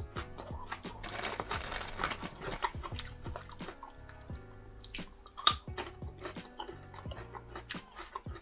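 Close-miked chewing and small clicks of rotisserie chicken being eaten by hand, over quiet background music with held notes. One sharper click stands out about five and a half seconds in.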